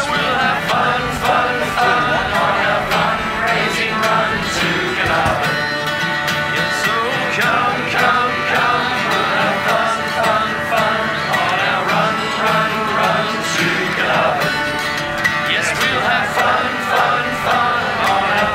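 Two acoustic guitars strumming a country tune, with a group of voices singing along.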